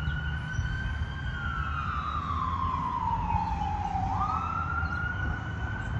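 Fire engine siren on a wail: the tone falls slowly for about three seconds, then sweeps quickly back up about four seconds in, over a steady low rumble.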